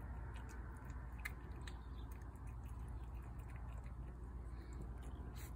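Cat chewing wet cat food from a plate: faint, irregular little clicks of chewing, a few a second.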